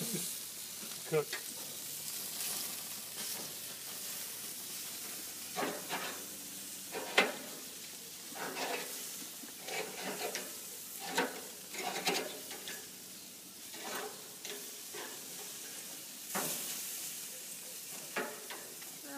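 Meat sizzling on a gas grill over open flame: a steady hiss, with scattered short clicks and knocks.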